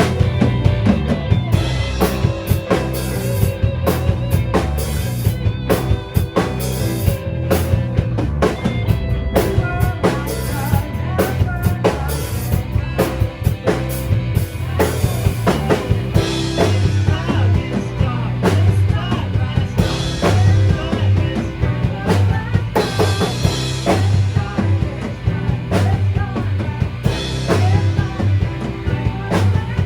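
Rock band playing a song: drum kit with a steady beat under electric guitars, bass and keyboards.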